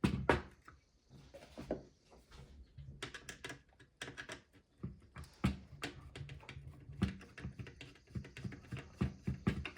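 Irregular light clicks and taps of a screwdriver and small plastic parts being handled as a screw is taken out of a toy ghost trap's circuit board.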